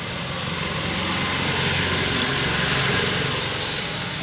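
Engine noise of a passing vehicle, swelling to a peak about halfway through and then easing off.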